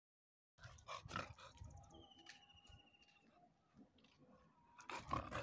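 Golden retriever puppy breathing and panting close to the microphone, starting about half a second in and getting louder near the end.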